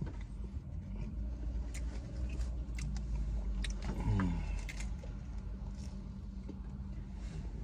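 Crisp crunches and chewing as a fried taco shell is bitten into, a handful of sharp crackles over a steady low hum in the car cabin. About four seconds in, a short downward-sliding tone is the loudest moment.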